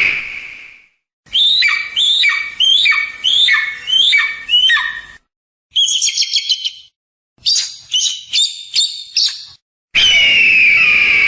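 Eagle calls in several separate bursts. A run of about seven cries, each falling sharply in pitch, is followed by a brief high chatter and a quick series of short high notes, and a long harsh scream begins near the end.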